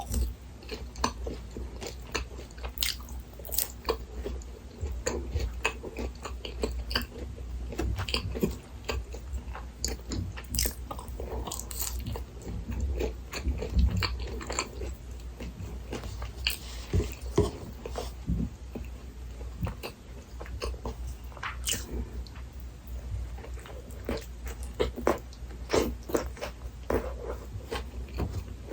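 Close-miked biting and chewing of a Burger King Texas Chili Whopper meal, with a stream of irregular crisp clicks and smacks from the mouth.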